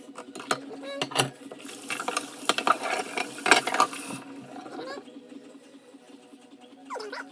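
Dishes being washed: scattered clinks and knocks of crockery, then a stretch of running water with more clatter for about two and a half seconds, over a steady low hum.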